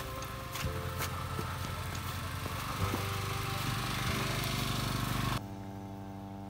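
A small engine running steadily. About five seconds in the sound changes abruptly to a quieter, even hum.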